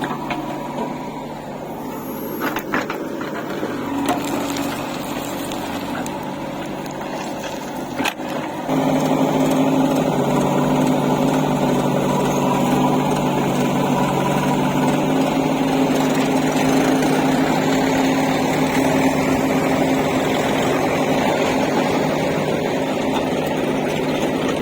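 Heavy diesel engine running steadily, with a few sharp knocks in the first eight seconds; about nine seconds in it revs up and holds at the higher speed.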